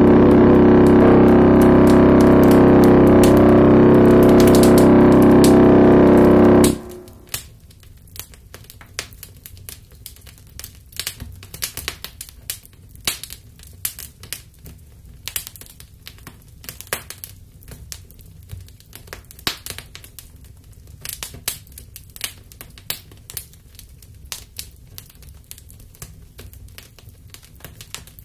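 Loud distorted electric guitar music that cuts off abruptly about seven seconds in, followed by the irregular sharp crackles and pops of a fire burning.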